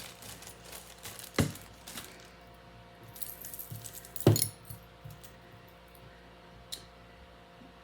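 Metal costume jewelry clinking and jangling as pieces are handled and set down, with two sharper knocks, one about a second and a half in and a louder one about four seconds in.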